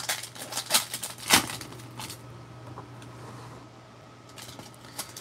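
Foil trading-card pack wrappers crinkling and crackling as a stack of packs is handled: a quick run of crackles and clicks over the first two seconds, quieter for a couple of seconds, then a few more near the end.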